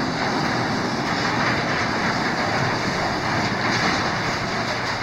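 Hinged sectional garage door closing, running with a steady, even mechanical noise as it travels down its tracks.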